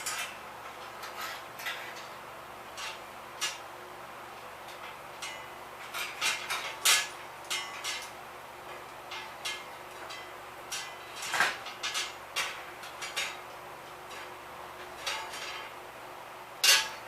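Irregular metallic clinks and knocks of tools and bicycle parts being handled during reassembly, the loudest knock near the end.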